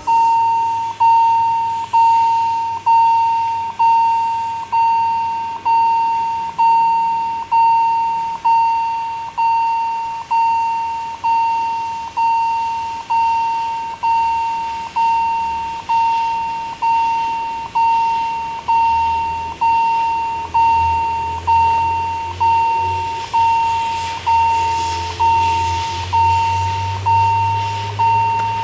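Level-crossing warning bell ringing about once a second, one steady tone per strike. Under it the low rumble of an approaching steam locomotive grows louder in the last third.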